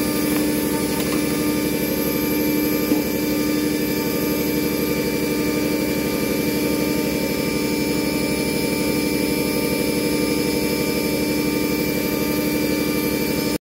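CNC engraving machine's spindle running at high speed while a fine conical bit carves a metal die: a steady, loud mechanical whine with several fixed tones over a constant hiss. It stops abruptly near the end.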